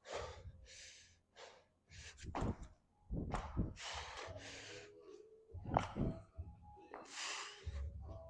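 A person breathing hard in repeated short breaths, with a few dull thuds.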